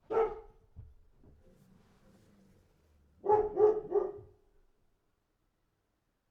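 A dog barking: one bark at the start, then three quick barks in a row a little past three seconds in.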